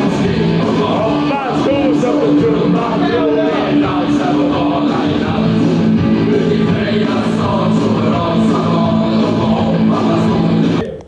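Rock music with a singing voice, playing loudly; it cuts off abruptly near the end.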